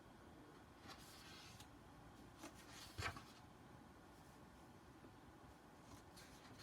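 Near silence with faint handling noises: light rustles of paper items and a soft tap about three seconds in.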